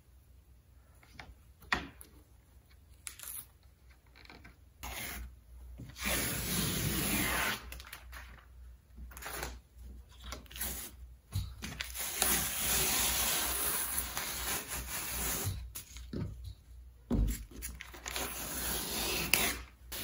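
Paper wallpaper border being peeled and torn off a wall panel, in several long ripping stretches with a few sharp clicks between.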